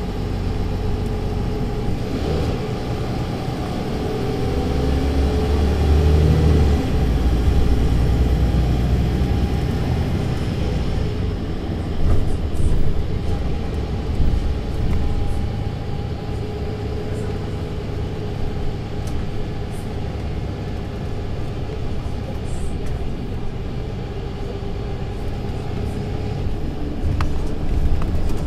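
Mercedes-Benz Citaro C2 LE city bus with a Voith automatic gearbox, heard from the passenger cabin: the diesel engine pulls away with a rising whine, shifts up about seven seconds in, then runs steadily with a few knocks.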